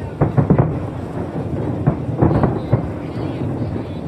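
Aerial fireworks exploding overhead: a rapid series of deep booms, several close together at the start and again around two seconds in, with a rumble carrying on between them.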